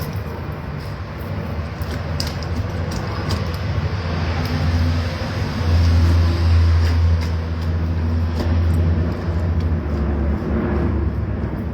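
A steady low engine hum that swells louder for several seconds in the middle, with faint scattered clicks over it.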